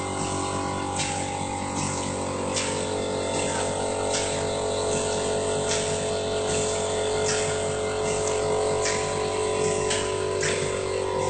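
Automatic sachet packing machine running with a steady hum. A short noisy stroke comes about every second and a half, one per sachet sealed and cut.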